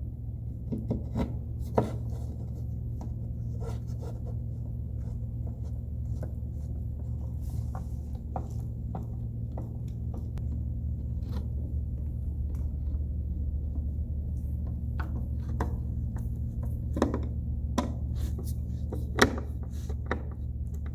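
Plastic dollhouse panels being handled and screwed together with a hand screwdriver: scattered clicks, taps and scraping, a few sharper knocks near the end, over a steady low hum.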